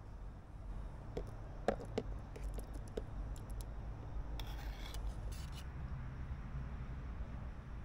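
Camp cooking gear being handled: a few light clicks and knocks, then two short scraping rasps about halfway through, over a steady low rumble.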